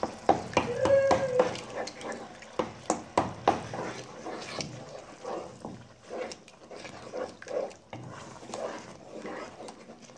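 A wooden spoon stirring eggs into a thick, simmering onion mixture in a pot, knocking sharply against the pot many times in the first few seconds, then stirring more softly.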